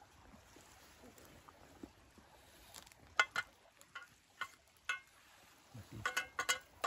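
Light metallic clinks of metal camp dishware: a few spaced clinks about halfway through, then a quick cluster near the end, each with a short ring.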